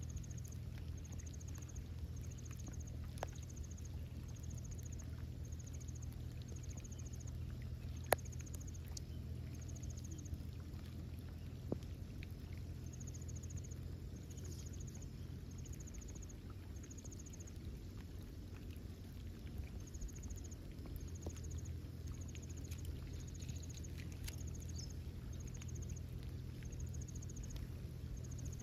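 Outdoor ambience: a steady low rumble, with short high chirps repeating about once a second and a few sharp clicks, the loudest about eight seconds in.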